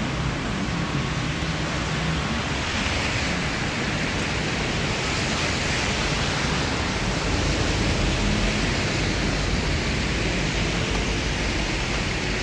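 Steady rain falling on a city street, a continuous even hiss with a low rumble underneath.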